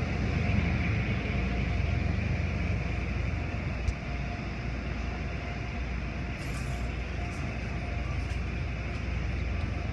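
Steady rumble and hiss of an automatic tunnel car wash's machinery, with spinning cloth brushes and water spray, heard through a glass viewing window. There is a single sharp knock about four seconds in.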